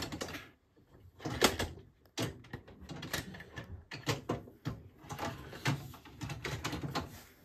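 Plastic cutlery tray of a Bosch Serie 4 dishwasher being handled off and back onto its runners: a string of irregular clatters, knocks and sliding scrapes.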